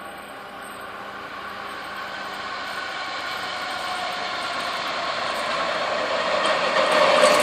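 Heritage diesel railcar (motoráček) approaching along the track, its engine hum and running noise growing steadily louder as it nears.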